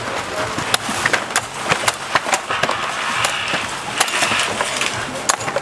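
Coconuts being chopped: a quick, irregular run of sharp knocks and clatter.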